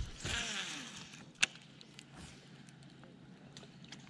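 A baitcasting reel just after a cast: a brief hiss near the start, a single sharp click about a second and a half in, then a faint quiet retrieve.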